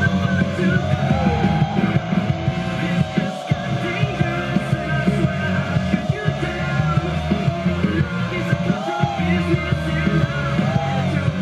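Rock music with a fast, steady drum beat.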